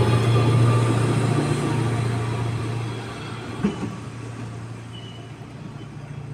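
Breng regional multiple-unit train pulling away from the platform, its low steady hum fading as it leaves, with a single clank about three and a half seconds in.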